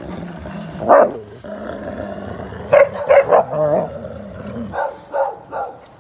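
Dogs growling low and giving short barks and yelps as they tussle over a pig's head. The calls come about a second in, in a quick cluster around three seconds, and a few more near the end.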